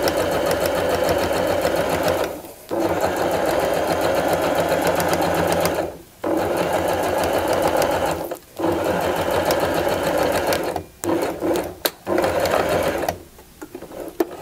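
Domestic sewing machine with a zipper foot stitching a line of topstitching, running steadily in stretches of a few seconds with brief stops as the fabric is guided, then a few short bursts before it stops near the end.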